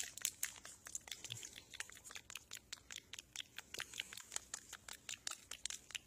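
Faint, quick crackling and crunching clicks close to the microphone, several a second, from a snack being handled and eaten.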